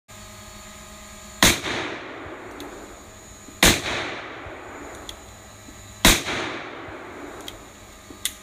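Three loud gunshots about two seconds apart, each followed by a rolling echo, over a steady hum.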